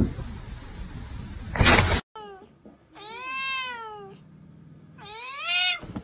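Tabby cat giving three drawn-out meows while squaring off with another cat: a short falling call, then a long call that rises and falls, then a rising one. Before them, a short loud burst of noise.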